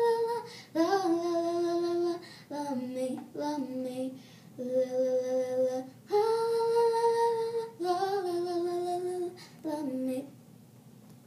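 A young girl singing unaccompanied: a string of long held notes that slide from one pitch to the next, ending about ten seconds in.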